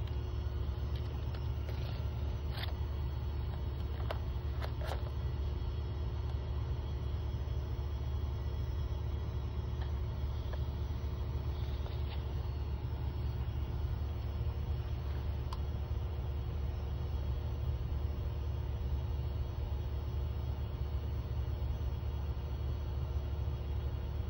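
UALAU OL280 laminator's roller motor running with a steady low hum as it draws a laminating pouch through. A few light clicks come in the first five seconds.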